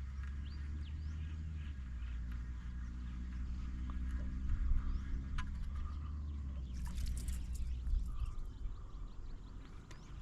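A low, steady engine hum that fades out near the end, with birds chirping over it.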